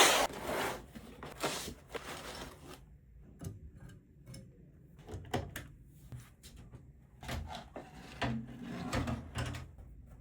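PC components being handled and fitted into a case: a rubbing scrape at the start, then a scattering of sharp clicks and light knocks, with a few duller thumps between about five and nine and a half seconds in.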